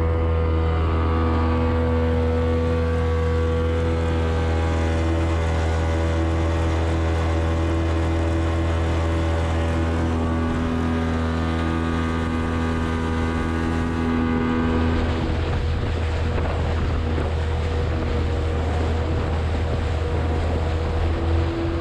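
Suzuki DT65 two-stroke outboard motor running steadily as the boat cruises. From about fifteen seconds in, a rush of wind and water noise rises over it, and the steady engine tones come back near the end.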